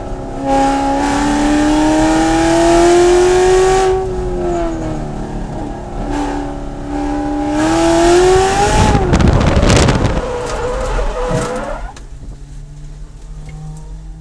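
Corvette C7 racecar's V8 accelerating hard, rising in pitch, easing off, then pulling again. Then comes a few seconds of rough noise with the engine pitch wavering, after which the engine falls back to a low, steady note near the end.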